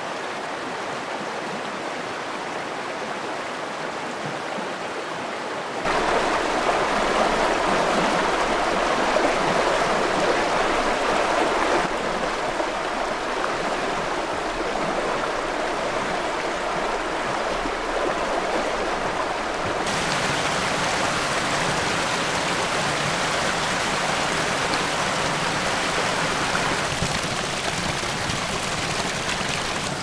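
White water of a rocky river: shallow rapids rushing over stones in a steady, dense rush. Its loudness and tone change abruptly several times, growing louder and fuller about six seconds in and shifting again around twelve, twenty and twenty-seven seconds.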